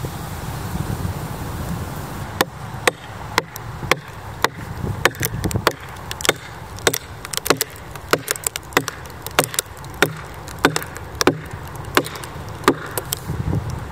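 Axe striking a red oak log being split open with wooden wedges: a long run of sharp, evenly paced knocks, about two a second, starting some two seconds in after a low wind rumble.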